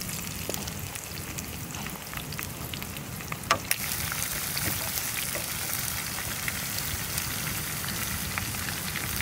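Crevalle jack fillets frying in butter and garlic in a pan: a steady sizzle with scattered small crackles, and one sharp click about three and a half seconds in.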